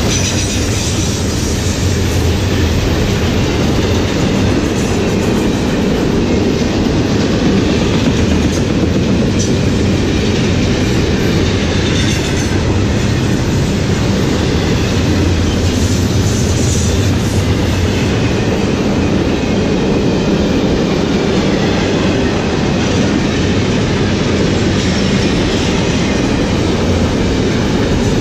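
Double-stack container well cars of a freight train rolling past at speed: a loud, steady rumble and clatter of steel wheels on the rails, with a faint high squeal now and then.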